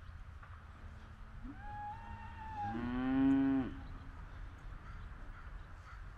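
A farm animal's drawn-out, moo-like call of about two seconds, starting about a second and a half in. It opens on a thin high note, then drops to a louder, lower note that stops short.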